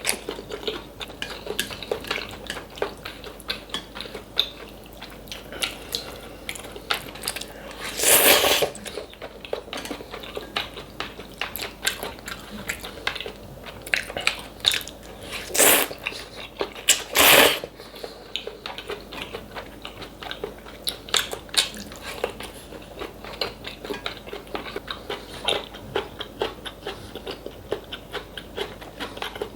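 Close-miked eating sounds: steady chewing and biting with many small clicks, and three louder, short bursts about eight, fifteen and seventeen seconds in.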